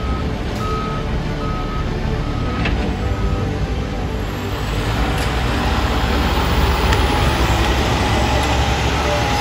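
A reversing alarm beeps at one pitch, about once every three-quarters of a second, stopping after about three and a half seconds. Then a Peterbilt dump truck's diesel engine grows louder as the truck pulls out close by.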